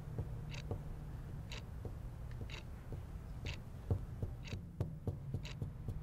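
A clock ticking steadily, about once a second, over a low steady hum, with a few fainter soft knocks in between.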